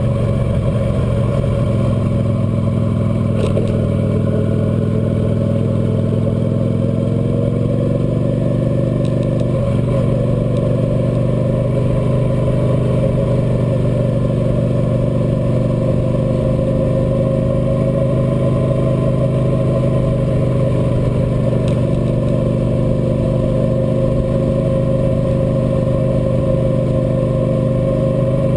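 Cruiser motorcycle engine running steadily while the bike is ridden along a winding road, heard from the bike. The engine's pitch dips briefly twice in the first ten seconds, then holds steady.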